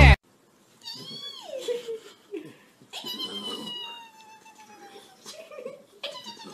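A burst of music cuts off at the start. Then a small flat-faced dog gives three long, drawn-out whining howls, each sliding down in pitch. The first comes about a second in, the second about three seconds in, and the third starts about six seconds in.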